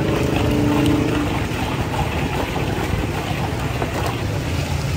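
Steady low rumble of street noise, like traffic or an engine running nearby, with a short pitched hum in the first second.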